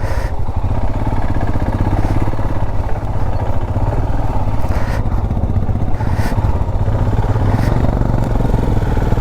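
Motorcycle engine running steadily under way, its firing pulse even throughout, with a few faint brief clicks over it.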